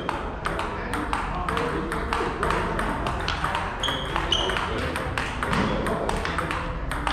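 Table tennis ball struck back and forth in a steady forehand rally: sharp clicks of the ball off the rubber paddles and bounces on the table, a few a second.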